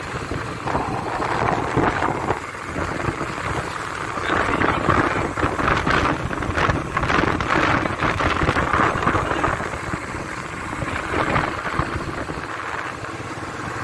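Wind buffeting the microphone on a moving motorbike, in gusts that swell through the middle, over the steady rumble of the bike's engine and tyres on the road.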